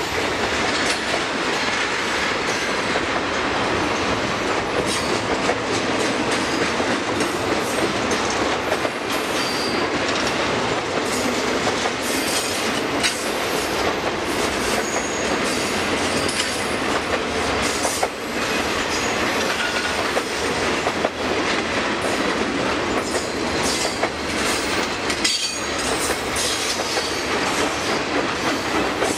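Freight train flatcars rolling past close by: a steady rumble of steel wheels on rail, broken by the clickety-clack of wheels over rail joints, with a few brief high wheel squeals.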